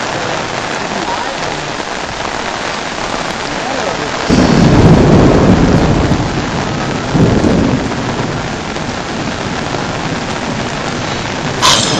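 Steady hiss of heavy rain, with a deep rumble swelling about four seconds in and a shorter one a few seconds later, then a sharp click near the end.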